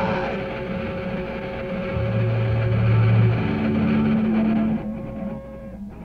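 A live hardcore punk band's amplified instruments ringing out at the end of a song. One steady high tone is held throughout, two long low notes sound under it, and the sound drops away about five seconds in.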